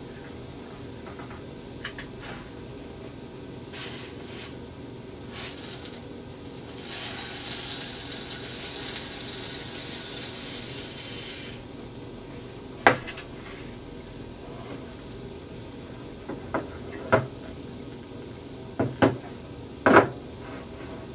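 Dry risotto rice poured from a paper bowl into a glass Pyrex measuring cup, a steady hiss lasting about five seconds. Then a series of sharp knocks and clinks as the glass cup is handled and set on the counter, the loudest near the end.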